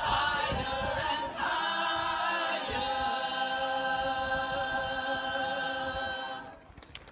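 A large mixed choir singing, moving through a few notes and then holding one long chord that fades out about a second before the end.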